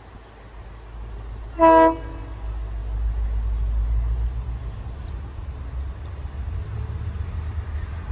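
WDP4D diesel locomotive approaching: one short horn blast about a second and a half in, over the low rumble of its engine, which grows louder as the train nears.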